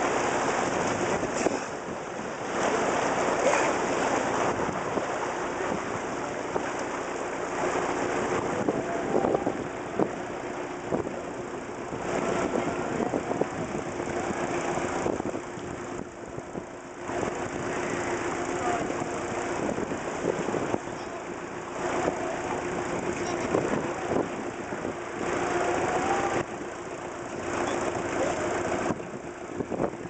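A boat engine running at a steady hum, under wind and the wash of the sea that swell and fade every few seconds.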